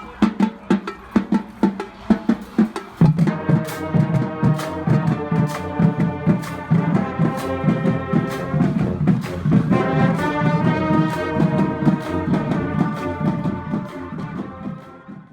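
Marching band playing: a drum cadence alone at first, then the brass section comes in about three seconds in over the drums; the music cuts off near the end.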